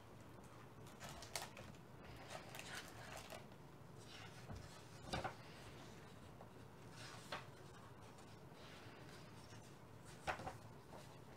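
Faint rustling and soft knocks of a hardcover picture book being opened and its pages turned on a wooden book stand, the loudest handling sounds about five seconds in and again about ten seconds in.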